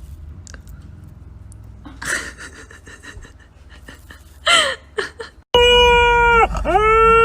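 Dog whimpering with short, gliding yelps. After an abrupt cut, a loud long steady note takes over, dipping once in pitch before holding again.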